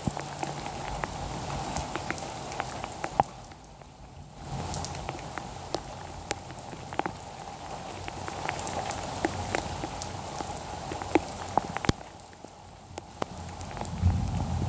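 Steady rain falling, with many sharp drop ticks close to the microphone; it eases briefly twice. A low rumble builds near the end.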